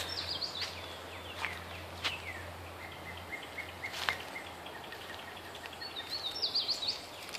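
Small birds chirping in quick runs of short notes: a burst at the start, falling chirps through the middle and another burst near the end, with a few sharp snaps in between.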